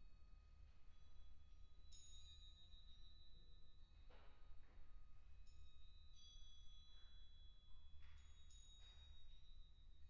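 Faint, high, bell-like tones of struck tuned metal percussion, with new strokes about two seconds and about six seconds in, each left to ring for several seconds.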